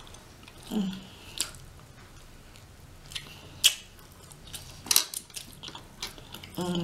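Close-miked eating of rotisserie chicken: scattered wet mouth clicks and smacks while chewing. There is a short hummed "mm" about a second in and another near the end.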